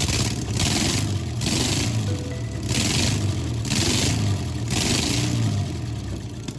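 Background music with a steady beat, about one beat a second, over the steady sound of a 1971 VW Kombi's air-cooled flat-four engine running.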